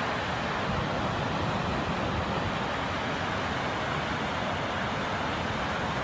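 Gullfoss, a large two-tiered waterfall, giving off a steady, unbroken rush of falling and churning water.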